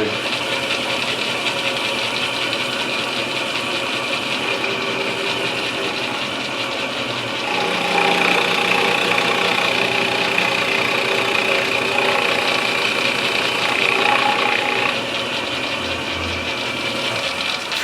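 Milling machine running, its round bit cutting into an English walnut gunstock to open up the inletting. The machine gives a steady run with a few steady tones, and grows louder for several seconds from about midway as the bit cuts harder into the wood.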